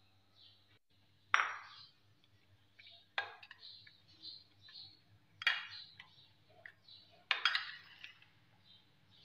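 Metal spoon clinking and scraping against a glass bowl while stirring shredded chicken into mayonnaise. The sharpest clinks come about every two seconds, with lighter scrapes between.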